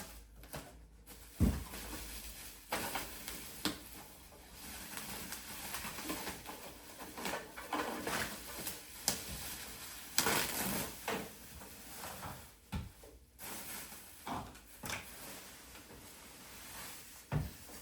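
Packaging being handled as a boxed diesel heater unit is unpacked: rustling and scraping, with scattered knocks and a few heavier thuds, the loudest about a second and a half in and near the end.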